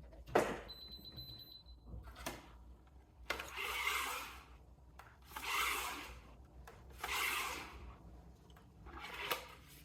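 Badminton string being pulled through the racquet's string bed, rubbing in three long pulls of about a second each, with a fainter fourth near the end. A sharp click comes about half a second in.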